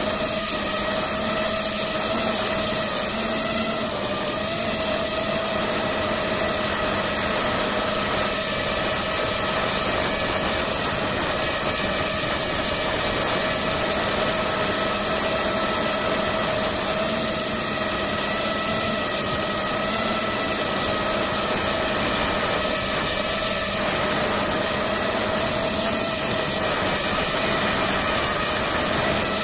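DJI FPV quadcopter's four motors and propellers whining steadily in flight, heard close up from a camera mounted on the drone, over a rush of air noise. The pitch holds nearly level throughout.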